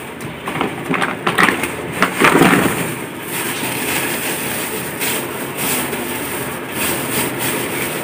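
Thin plastic produce bag crinkling and rustling as hands untie and open it, the crinkling densest in the first few seconds.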